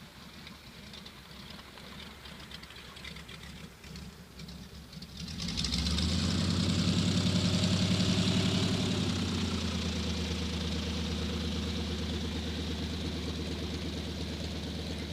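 Piston aircraft engine opening up about five seconds in: a faint rumble rises quickly to a loud, steady drone, easing a little after about nine seconds, typical of an aerotow launch starting.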